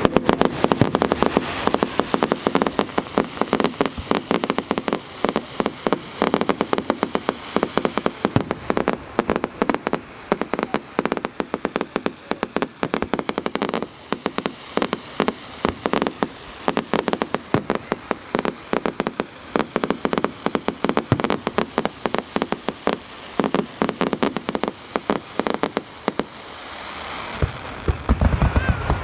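Fireworks crackling: a dense, continuous run of sharp pops and cracks, many a second.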